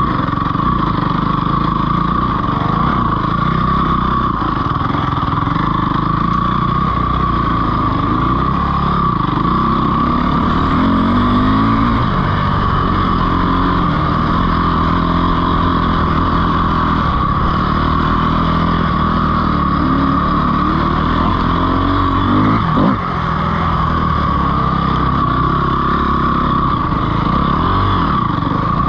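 Dirt bike engine running under load, its revs rising and falling again and again as the throttle is worked, with a brief drop about 23 seconds in.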